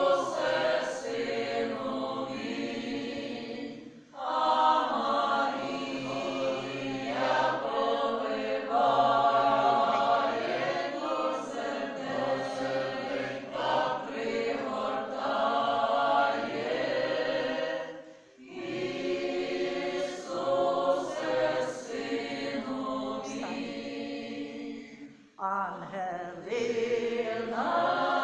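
Mixed group of men's and women's voices singing a Ukrainian Christmas carol (koliadka) unaccompanied, in long phrases with short breaks about four seconds in, past the middle, and near the end.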